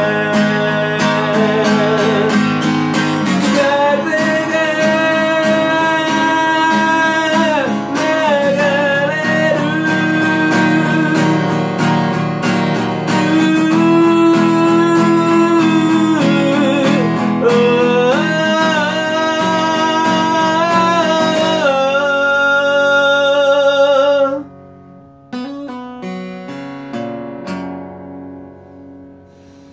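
Pop ballad interlude: strummed acoustic guitar under a held, wavering lead melody. About 24 seconds in the full sound drops away, leaving soft, sparse guitar notes.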